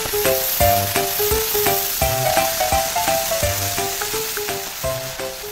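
Crackling, sizzling sound of a sparkling firework burst, fading slowly in the second half, over a light tune of short notes with a bass line.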